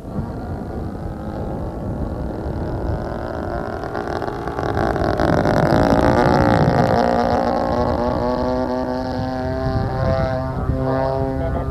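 DLE 20cc single-cylinder two-stroke gas engine of an RC airplane in flight, its pitch shifting with throttle. It grows loudest about six seconds in as the plane makes a low pass, and the pitch sweeps down as it goes by, then runs steadier as it climbs away.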